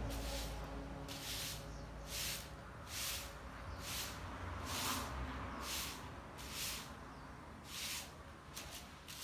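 Long-handled grass broom sweeping a tiled courtyard: a steady run of short scratchy swishes, about one stroke a second, as the bristles brush across the tiles.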